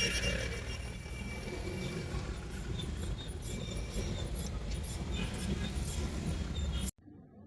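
Busy street background noise: a steady traffic rumble with scattered faint clicks, cutting off abruptly near the end.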